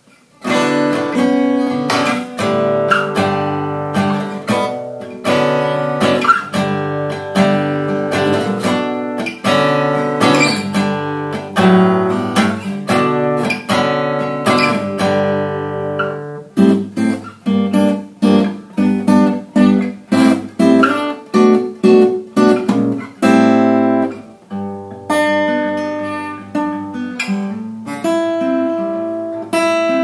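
Seagull Entourage Rustic acoustic guitar, cedar top with wild cherry back and sides, strummed chord after chord. For the first half the chords ring out; from about halfway through the strokes get shorter and choppier, with brief gaps between them.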